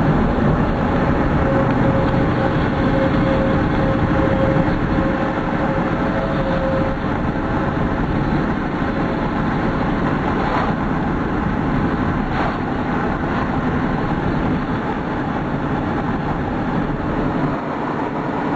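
Steady vehicle engine and road noise, with a faint steady tone in the first several seconds and a couple of faint clicks near the middle.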